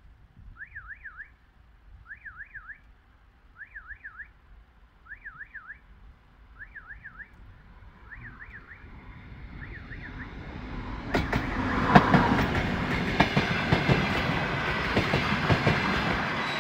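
Level-crossing warning signal sounding in short warbling bursts about every one and a half seconds. A DR1A diesel multiple unit then comes in as a rising rumble and passes loudly from about eleven seconds in, its wheels clattering over the rail joints and the crossing.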